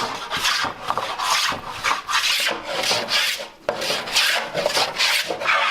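Hand tool rasping or scraping along wood in repeated strokes, about two a second, as a kayagum part is shaped by hand.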